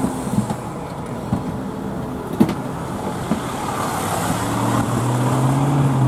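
Steady road noise from inside a slowly moving car, with a sharp click about two and a half seconds in. A parked fire engine's engine runs close beside the car, its low drone growing louder from about four seconds in as the car passes it.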